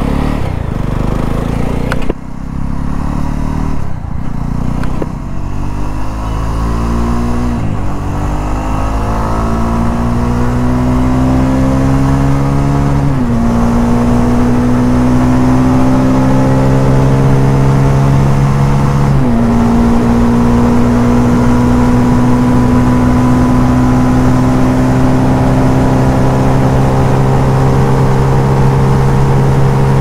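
Jawa 42's 293 cc single-cylinder engine under hard acceleration. Its note climbs in pitch and drops back at three upshifts, then holds a steady high note at speed.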